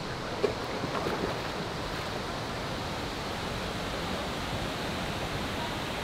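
Steady rushing of a waterfall pouring into a river pool, with one short sharp sound about half a second in.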